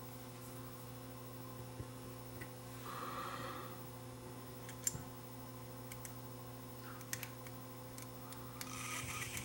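A few faint clicks and a short soft scrape of a metal pick working the switch contacts on a Sony WM-10 Walkman's circuit board, over a steady low hum.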